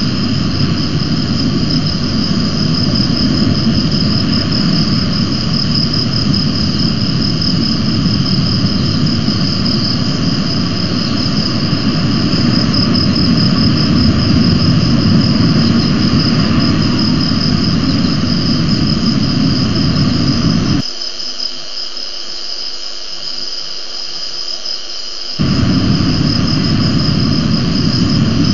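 Steady ambient noise at the nest camera: a low rumble with a continuous high-pitched drone above it. The rumble drops away for about four seconds near the end, then returns.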